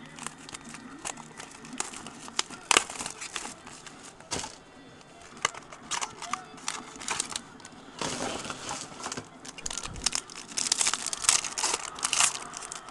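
Foil wrapper of a 2008 Upper Deck Sweet Spot baseball card pack crinkling and tearing as it is handled and opened, in scattered sharp crackles that grow busier and louder about ten and a half seconds in.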